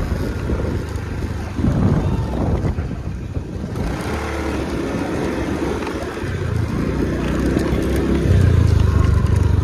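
Motor vehicle running along a rough road, its engine and road noise heard from aboard, growing louder about eight seconds in.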